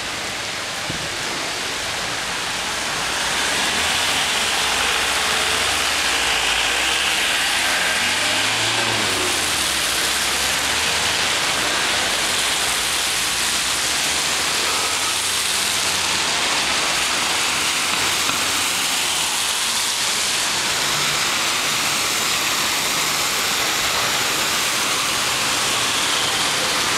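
Steady hiss of rain and tyres on a wet city road, with the engines of passing cars and a coach close by. The hiss gets louder about three seconds in and then holds steady.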